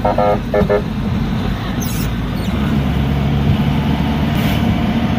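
Steady engine and road noise heard from inside a moving vehicle's cabin, with a low engine hum becoming steadier about halfway through. A few short pitched sounds in the first second.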